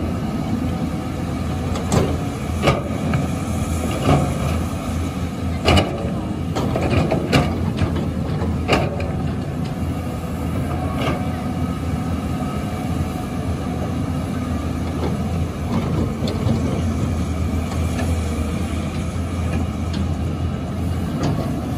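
Caterpillar 320C excavator's diesel engine running steadily while it digs, with irregular sharp knocks and clanks from the bucket working the wet, rocky soil, most of them in the first half.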